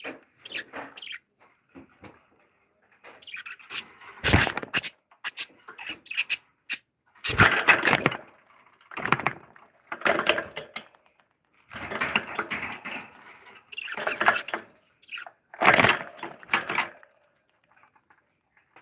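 Lovebirds giving short, irregular bursts of harsh chattering calls, with three sharp knocks among them.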